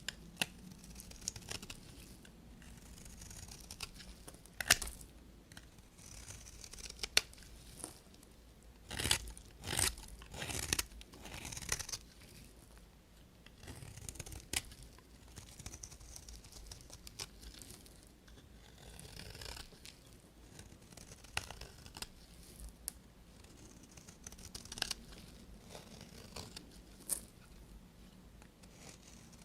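Knife cutting through bars of soap: irregular crisp crunching and cracking cuts with quieter scraping between them, the loudest run of cuts about nine to eleven seconds in.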